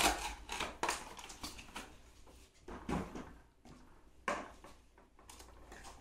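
Cardboard packaging and a plastic toy car being handled on a hard floor: a string of knocks, scrapes and rustles, the sharpest right at the start and about four seconds in.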